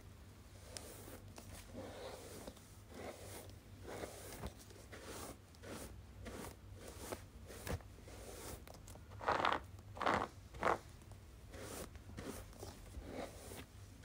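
Hairbrush strokes: a run of soft scratchy swishes, several a second, with three louder strokes about nine to ten and a half seconds in.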